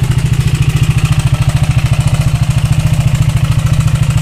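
KTM RC 390's single-cylinder engine idling steadily through an aftermarket Akrapovič exhaust, an even pulse of about a dozen beats a second.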